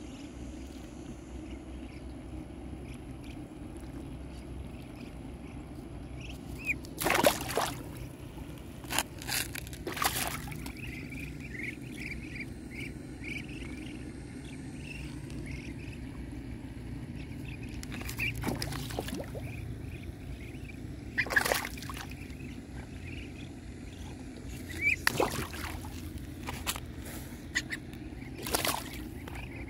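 Pond water sloshing and splashing against a concrete rim, with about seven brief splashes spread through, over a steady low outdoor rumble. Faint, short, high duckling peeps come in the middle.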